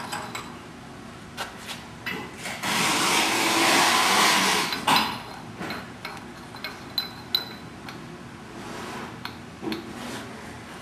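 Metal clinks and knocks as a workpiece is handled and clamped in a drill-press vise, with a loud hiss lasting a couple of seconds a little before the middle.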